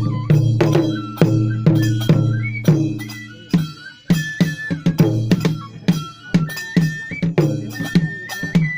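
Japanese kagura music: drum strikes about once or twice a second, each ringing on, under a high bamboo-flute melody that steps between held notes.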